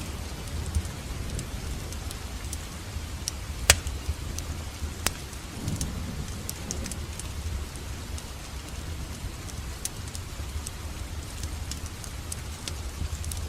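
Wood fire crackling in a fireplace: many small irregular pops over a steady low rumble of flames, with one loud sharp pop a few seconds in and another soon after.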